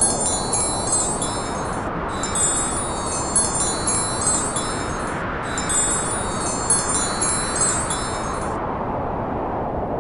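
A bright, high chiming rings in three stretches of about three seconds each, starting and stopping abruptly, over a steady rushing noise.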